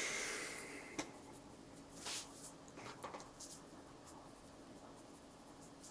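A watercolour brush rubbing and dabbing in a plastic palette's mixing well, rewetting the paint mixes, with a light knock about a second in as brushes and palette are handled.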